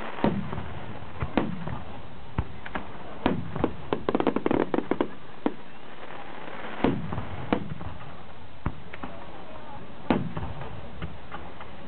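Starmine fireworks display: aerial shells bursting with sharp bangs at irregular intervals. A quick run of crackling reports comes about four seconds in, and bigger booms follow near seven and ten seconds in.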